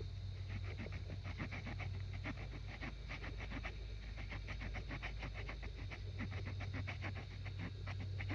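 Small folding saw blade of a multi-tool cutting through a stick in quick back-and-forth strokes, a few per second, with brief pauses along the way.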